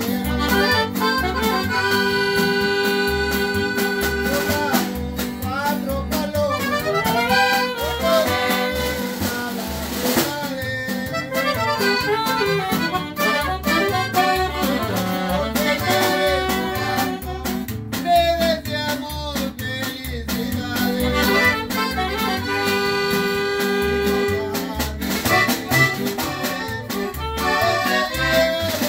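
A live norteño group plays: an accordion carries the melody in long held and running notes over guitar strumming, while an upright bass plucks a steady low beat.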